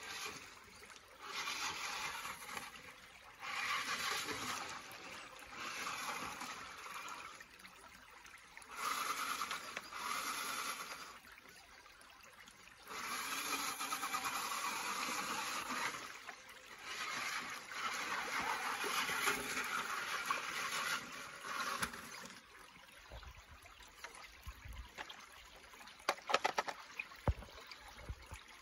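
A 2WD RC off-road truck's wheels churning and splashing through shallow creek water, in repeated spells of one to four seconds, over the creek's steady trickle. Near the end the splashing stops and a few sharp clicks and knocks come as the truck crawls over rocks.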